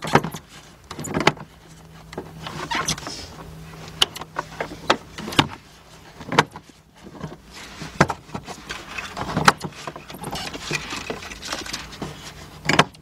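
Irregular sharp clicks and knocks of plastic as the fuel pump module's plastic lock ring is worked round by hand in the tank opening, about ten in all. A steady low hum runs underneath.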